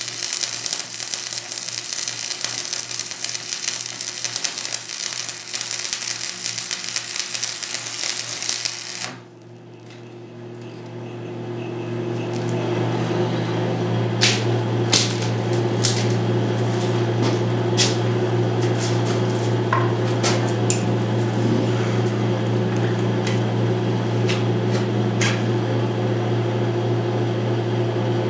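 Stick welding arc crackling steadily on a vertical weld in steel plate, cutting off suddenly about nine seconds in. A steady low hum follows, with scattered sharp clicks.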